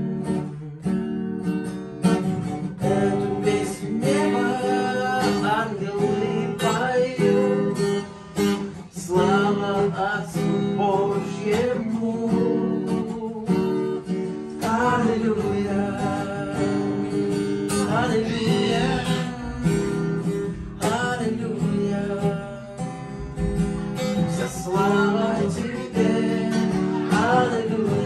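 Acoustic guitar strummed steadily, with a voice singing a melody along with it.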